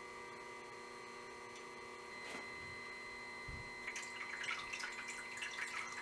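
Bandsaw-blade sharpener's motor humming steadily. About four seconds in, coolant starts trickling and dripping onto the grinding wheel.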